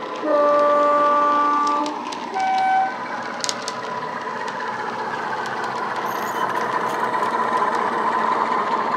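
Heljan Class 45 model locomotive's DCC sound decoder, a Legomanbiffo Sulzer diesel sound file through an EM1 speaker, sounding a two-tone horn: a long low note, then a short higher one. The diesel engine sound then runs steadily, growing louder as the model approaches.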